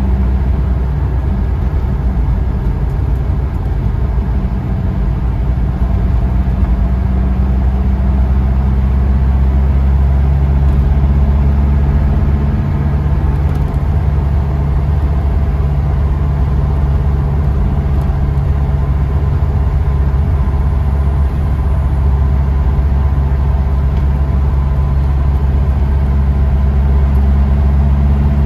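A taxi's engine and road noise heard from inside the cabin while it cruises: a steady low drone whose engine tones shift slightly partway through.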